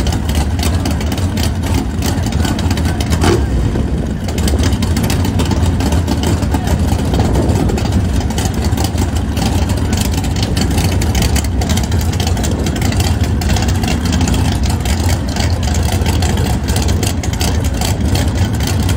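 Race engines idling loudly and steadily at a drag strip's starting line, from a no-prep drag pickup truck and a car staged side by side.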